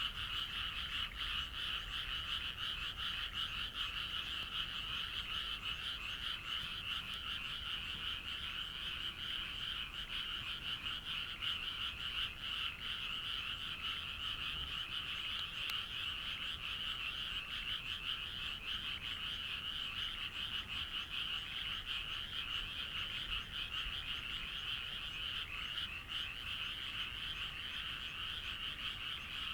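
A chorus of many frogs croaking continuously, their overlapping rapid calls forming one steady, unbroken sound.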